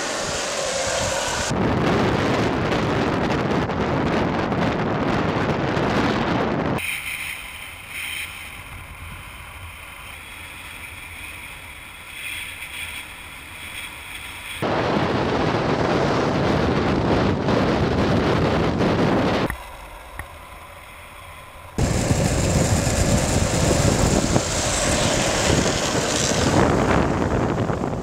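Wind rushing over the microphone together with the roll of longboard wheels on asphalt during a fast downhill run. It comes in three loud stretches, broken by quieter passages from about 7 to 15 seconds and again briefly around 20 seconds.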